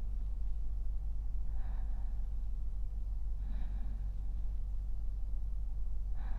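A man's slow, even sleeping breaths, three soft breaths about two seconds apart, over a steady low hum.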